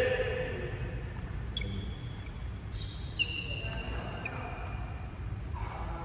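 Sports shoes giving a few short high squeaks on a badminton court floor, over the steady low hum of a large sports hall, with one light tap about four seconds in.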